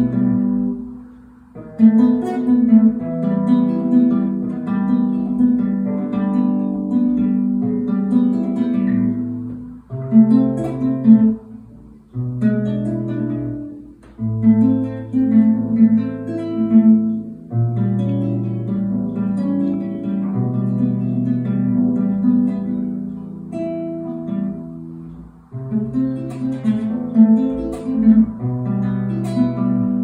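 Classical guitar played fingerstyle: plucked melody notes over held bass notes, in short phrases with brief pauses between them.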